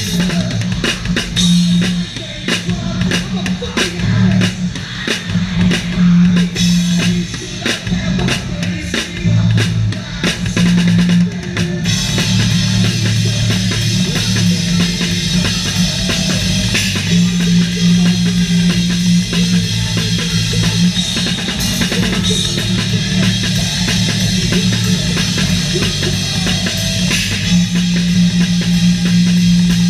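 Live rock band playing, with the acoustic drum kit to the fore: kick drum, snare and cymbal hits over a sustained low bass line. About twelve seconds in the sound thickens, the top end filling with a constant wash.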